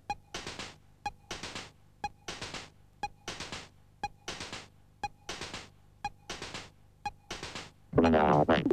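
Electronic synthesizer score: a sparse, even pulse of sharp clicks, one a little under every second, with hissing noise bursts between them. Near the end a loud warbling synthesizer tone comes in.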